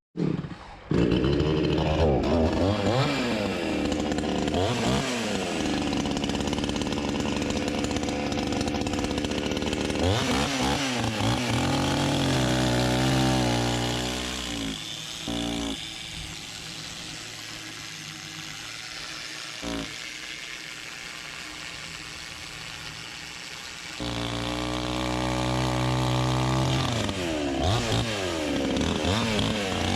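Engine-driven woodworking machinery running and revving up and down again and again, with a quieter stretch in the middle before it runs loud and steady again.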